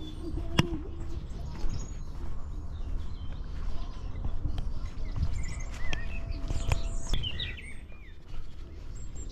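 Small birds chirping and warbling in short, scattered calls over a steady low rumble, with one sharp click less than a second in.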